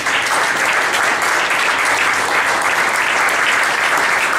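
Audience applauding: steady, loud clapping from a roomful of people.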